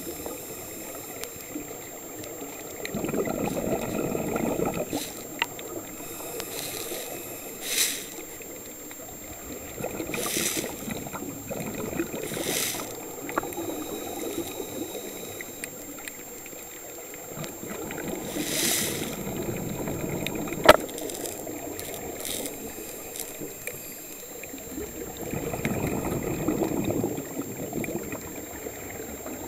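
Scuba regulator breathing heard underwater: exhaled bubbles gurgling in swells every several seconds, with brief hissing breaths between. A single sharp click sounds about twenty seconds in.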